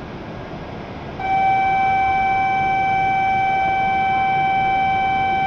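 Shinkansen platform departure buzzer sounding before the train leaves: about a second in, one long steady electronic tone with overtones starts over the station's background hiss and is held without a break.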